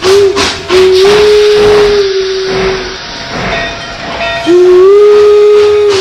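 Steam locomotive whistle of Virginia & Truckee No. 22 Inyo: a brief toot, then a long blast of about two seconds that slides up slightly as it opens. A burst of steam hiss follows, and a second long blast begins near the end.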